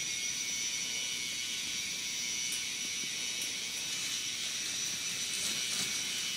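K'NEX motor driving the roller coaster's plastic chain lift: a steady high-pitched whir, with a few faint clicks from the track.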